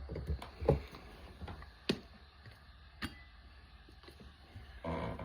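A few sharp clicks and knocks, roughly a second apart, from handling coffee-making gear (infuser, kettle, cup), then a brief louder rustle near the end.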